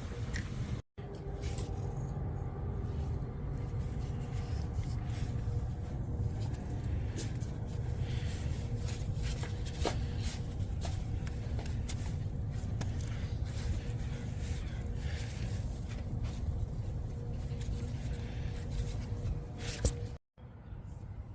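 2008 BMW 335i's twin-turbo straight-six engine idling steadily, with a few light clicks on top. It cuts out briefly twice.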